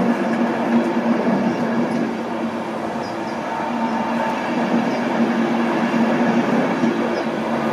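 An InterCity 225's Mark 4 passenger coaches passing close by, with the steady rolling noise of the wheels on the rails and a low hum underneath.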